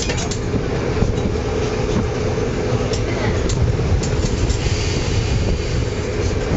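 Dalian DL3000 tram running at steady speed on street track: a low rumble of wheels on rails and a steady hum from its nose-suspended (tsurikake) traction motors, with a few faint clicks around the middle.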